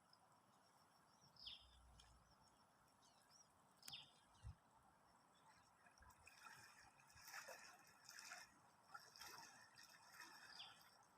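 Near silence with faint outdoor ambience: a few short, high, falling bird chirps several seconds apart, a soft thump about four seconds in, and a faint crackling in the second half.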